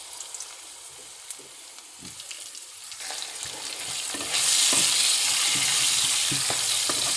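Potato chunks frying in hot oil in a nonstick kadai: a sizzling hiss that grows much louder a little over four seconds in. From then on a wooden spatula stirs the pieces and knocks against the pan.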